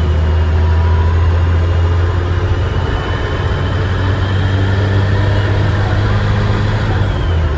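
Dennis Trident double-decker bus engine running under way, with a low steady drone and a thin high turbocharger whistle. The whistle drops in pitch at the start, climbs a few seconds in and drops again near the end as the engine revs change.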